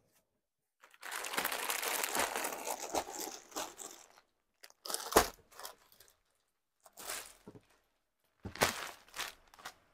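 Crinkling and rustling from sarees being handled: a long stretch of continuous rustling starting about a second in, then a few short, separate crackles.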